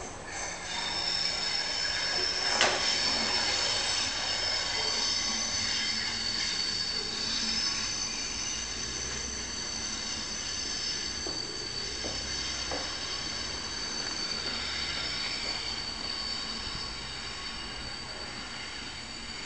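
Diesel freight locomotive and train with a steady, high-pitched wheel squeal over a low engine rumble. A sharp clank comes about two and a half seconds in, and then the sound fades slowly as the train draws away.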